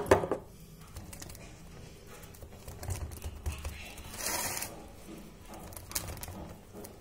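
Wet hands patting and pressing soft mashed potato dough into a round aluminium baking pan: scattered light taps and squelchy pats, with a loud knock right at the start and a short swish about four seconds in.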